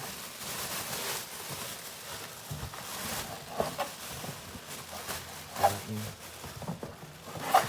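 Rustling and crinkling of packaging being handled, with scattered small clicks and knocks as parts are lifted out of the box.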